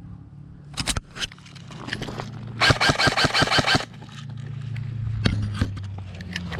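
Airsoft electric gun (AEG) firing: a few sharp clicks about a second in, then a full-auto burst of about a dozen shots a second lasting a little over a second.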